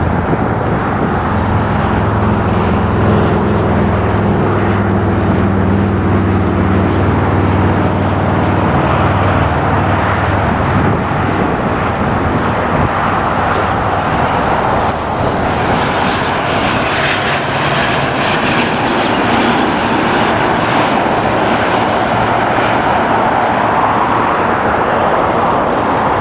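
Jet airliner engines: a loud, steady rumble. A low hum fades out about ten seconds in, then a brighter, hissing jet sound builds from about halfway and eases near the end.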